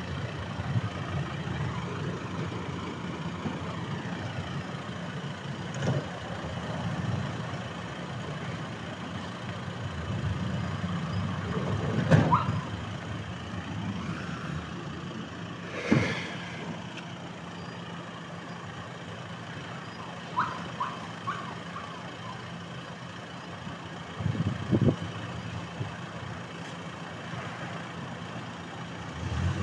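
Vehicle engine idling steadily, with a few sharp knocks, the loudest about twelve seconds in.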